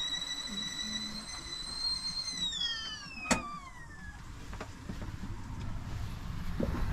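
Stovetop whistling kettle on a camper van's gas hob whistling at the boil. The steady high whistle slides down in pitch and fades a little after two seconds in, as the kettle is lifted off the burner. A sharp click comes about three seconds in.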